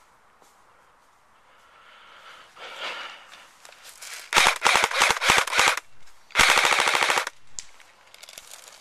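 JG G3 electric airsoft rifle firing two bursts on full auto, rapid clicking shots about four and six and a half seconds in, each lasting about a second, after some rustling movement.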